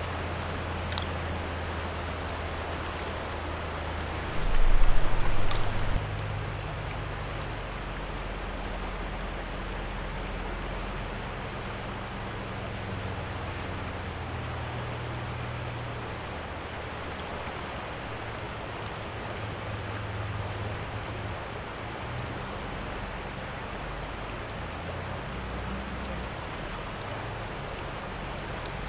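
Steady rush of a river running high over riffles. About four to six seconds in, a brief, louder low rumble rises above it.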